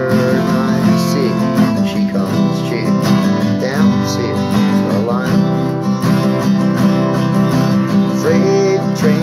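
Acoustic guitar strummed steadily through a chord progression, with a voice singing along at times.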